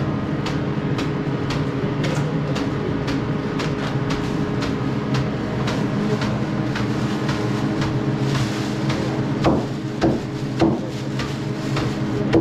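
Knife chopping onions by hand on a wooden board, regular strikes about twice a second, over a steady mechanical hum. A plastic bag rustles briefly, then a few louder thumps come near the end.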